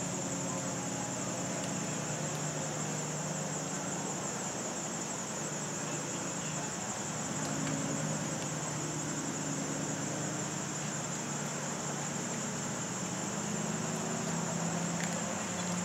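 Steady high-pitched insect chorus, a constant shimmering buzz, over a low indistinct murmur.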